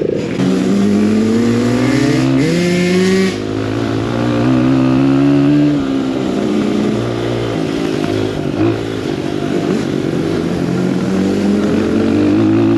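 Dirt bike engine under load, its pitch climbing and dropping as the throttle is worked and the gears are changed, with a sharp drop about three seconds in.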